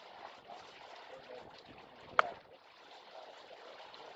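Steady outdoor background hiss with a single sharp click a little over two seconds in.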